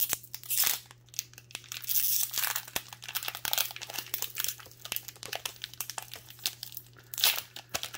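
Foil trading-card booster pack wrapper being torn open and crinkled by hand, in irregular bursts of rustling with sharp clicks.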